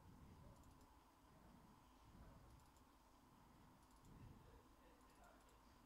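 Near silence: room tone with a few faint groups of light clicks from a computer in use.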